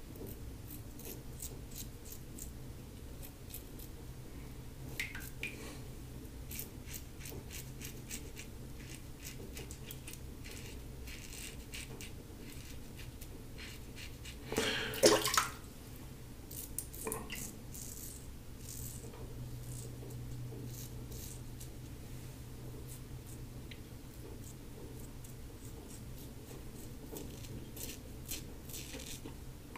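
Stainless steel double-edge safety razor (LASSCo BBS-1, Gillette Silver Blue blade on its third shave) scraping through lathered stubble in short strokes, a run of crisp little scratches. A brief louder noise comes about halfway through.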